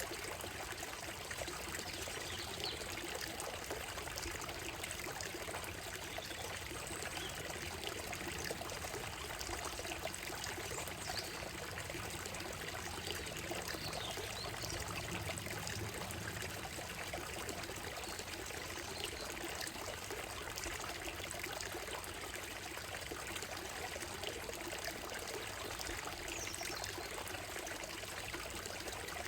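Shallow stream running steadily over stones and a gravel bed, a continuous trickling rush, with faint bird calls now and then.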